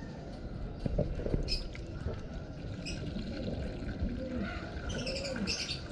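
Liquid poured from a plastic bottle splashing into a plastic pigeon drinker's base as it fills, with the bottle gurgling about twice a second in the second half.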